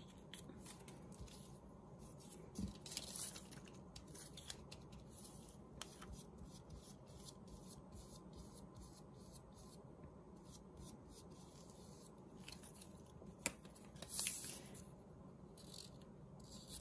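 Quiet handling of paper strips: soft rustling and rubbing as a curled strip is unrolled and strips are laid and pressed down onto a glued board, with two brief swishes about 2 and 14 seconds in and a single sharp click just before the second.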